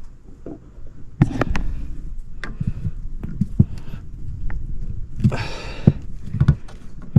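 Irregular knocks, clicks and clatter of tools and drain-line parts being handled, with a brief scraping, hissing burst about five seconds in.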